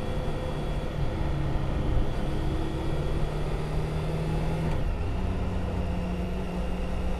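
Triumph Tiger 1050's inline three-cylinder engine running at a steady pace on the expressway over a rush of wind and road noise; the engine note shifts a little higher about five seconds in.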